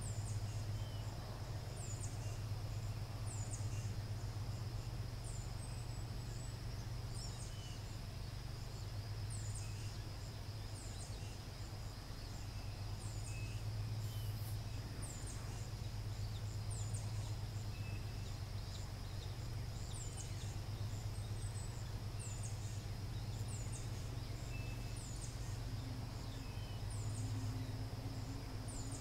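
High, thin bird calls repeat every second or two over a steady low hum and a faint, steady high tone.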